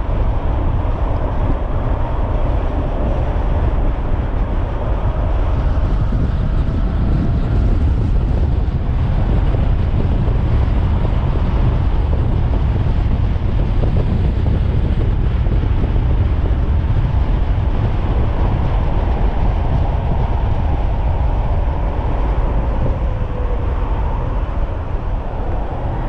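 Heavy wind rush on the microphone while riding a 72-volt electric bike at speed, with a faint whine from its 3000-watt motor slowly rising and falling underneath.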